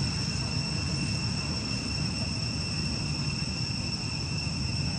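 Steady, high-pitched drone of insects calling in chorus, unchanging throughout, over a low rumbling noise.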